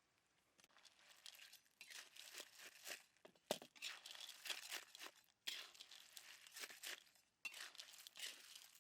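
Irregular bursts of crackling and crunching, with many sharp clicks, starting about half a second in and stopping briefly a few times.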